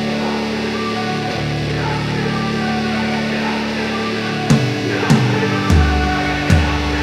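Background rock music with guitar: sustained chords at first, then drums come in with a heavy beat about four and a half seconds in.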